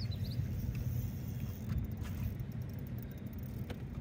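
A boat's motor running in a steady low rumble, with a few short high chirps at the very start.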